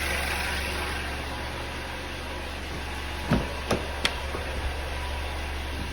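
2017 Mercedes-Benz E300's engine idling steadily, its fan belt freshly sprayed with belt dressing to stop a squeak. A few light knocks come about three to four seconds in.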